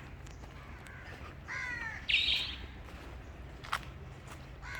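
A bird calling twice in quick succession about two seconds in: a short falling call, then a harsher, higher one.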